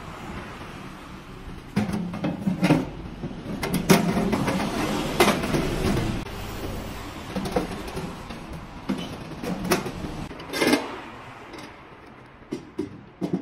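Metal parts of a stove firebox clanking and scraping as a round slotted metal grate is fitted inside, with irregular knocks that are densest in the first half and a few sharp ones about two thirds through.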